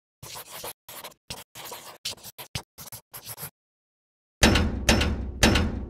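A pen scratching on paper in a quick run of short strokes, as a handwritten logo is written out. Then come three heavy, deep hits about half a second apart, each ringing out, which are the loudest sounds.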